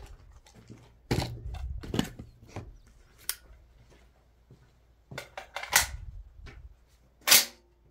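A series of sharp clicks and knocks at uneven spacing, about eight in all, from shotgun shells and the Tokarev TT12 shotgun being handled and loaded. They are much quieter than the shotgun firing.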